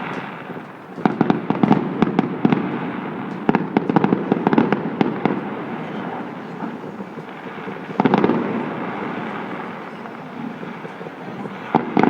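Fireworks bursting: a dense run of bangs and crackles from about a second in to around halfway, then a single loud burst about two-thirds of the way through and another near the end, with a steady rumbling haze between them.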